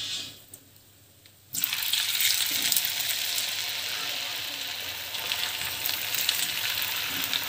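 Masala-coated raw banana and potato pieces deep-frying in hot oil in a clay pot. After a short quiet gap, a loud sizzle with small crackles starts suddenly about a second and a half in, as the pieces go into the oil, and keeps on steadily.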